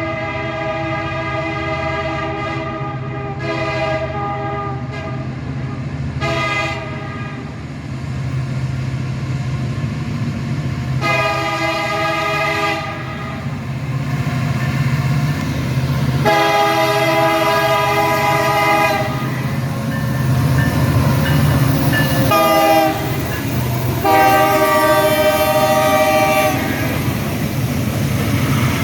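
Diesel locomotive air horn blowing a run of blasts: a long one, three short toots, then four more blasts of one to three seconds each. Under the horn runs a steady low rumble of the passing train.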